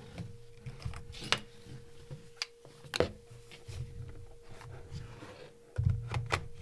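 Hands working a mirrorless camera body and a large telephoto zoom lens: a few sharp plastic and metal clicks and knocks as the body is fitted onto the lens mount, over low rubbing and bumping that grows heavier near the end. A faint steady hum sits underneath.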